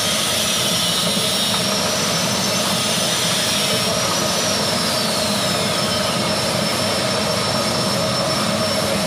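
Electric rhizome washing-and-peeling machine running steadily with a constant whine, churning turmeric rhizomes and water inside its stainless-steel drum.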